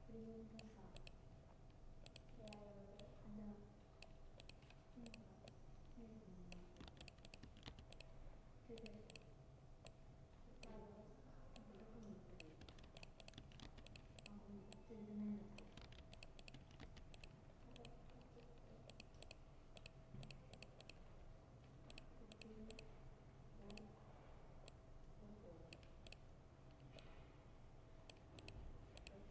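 Faint, irregular typing clicks from a laptop keyboard, with distant voices murmuring and a faint steady hum behind them.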